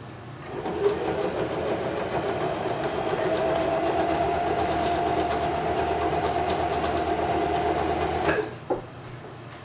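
Baby Lock electric sewing machine running at a steady speed, stitching close to the edge of layered fabric. It starts about half a second in and stops shortly before the end, followed by a single click.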